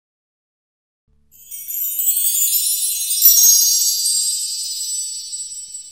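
A high, shimmering ringing of small chimes that starts a little over a second in and slowly fades out, with one light tap about three seconds in.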